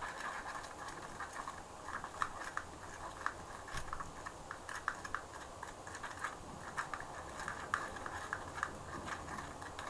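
A thin stick stirring acrylic powder and glitter in a small plastic pot, giving an irregular run of light clicks and scrapes against the pot.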